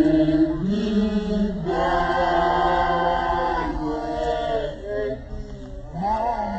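A group of women singing a chant together in a Sesotho initiation song, holding long notes that step up and down in pitch, loudest through the middle.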